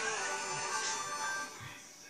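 Background music, fading out about a second and a half in.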